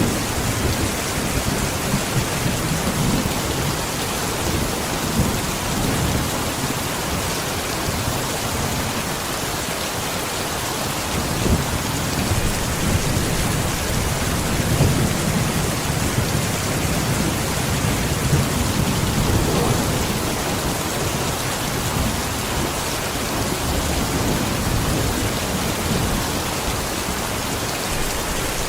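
Heavy, steady rain falling as a dense, even hiss, with low rumbling swells that come and go throughout.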